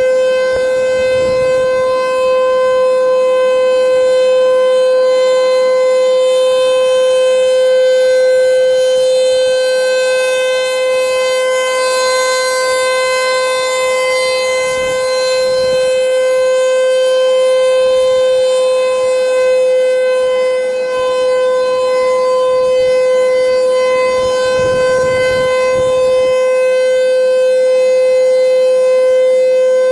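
Outdoor tornado warning siren sounding one steady, held tone during a test. Its upper notes swell a little around the middle.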